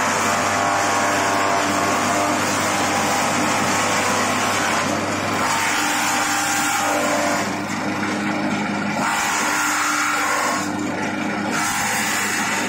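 Palm-frond shredding machine running: a steady motor hum under a loud rushing, grinding noise that shifts and briefly drops several times in the second half.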